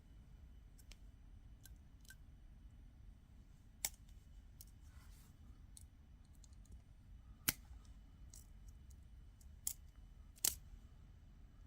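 Sparse sharp clicks of metal jewelry pliers on wire as an eye-pin wire is wrapped around itself to close a loop: a handful of light clicks over a quiet background, the loudest about halfway and near the end.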